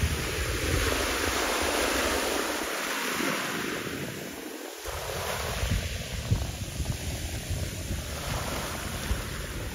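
Wind buffeting the microphone in gusts over an even rushing hiss, the low rumble easing for a moment near the middle.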